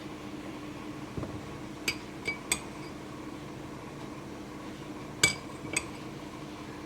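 A spoon clinking against a dish: a handful of short, light clinks, the loudest pair about five seconds in, over a steady low hum.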